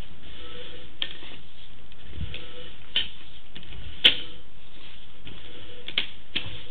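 Sewer inspection camera's push cable being pulled back through the line: a few sharp clicks and knocks at irregular intervals, the loudest about four seconds in, over a steady hiss.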